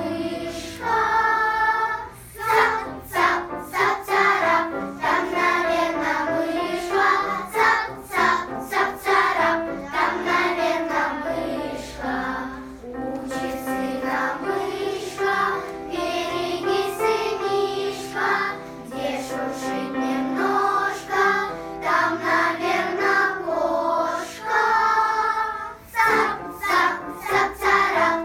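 Children's choir singing a song together in continuous phrases.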